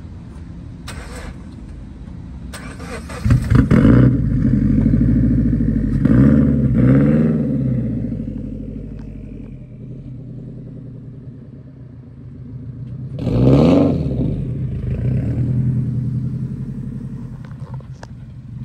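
Sports car engine idling and revving in blips. A sudden sharp burst comes about three seconds in, two quick revs rise and fall around six to seven seconds, and another rev comes about thirteen seconds in, each settling back to idle.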